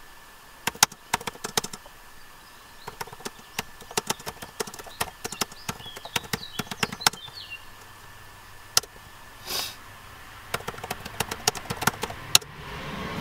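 Typing on a laptop keyboard: quick, irregular key clicks in bursts with short pauses.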